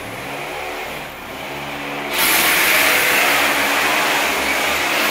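Electric power drill running at a steady pitch, then about two seconds in a much louder, rough drilling noise starts and keeps going: holes being drilled into the floor for termite chemical injection.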